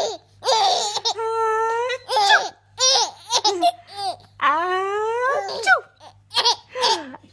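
Six-month-old baby giggling and laughing in a run of high-pitched bursts, several rising in pitch, with short breaths in between.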